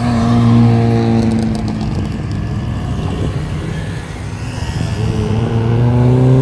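Car engines driving past loudly: one engine's note sinks over the first couple of seconds, then another engine's note climbs near the end.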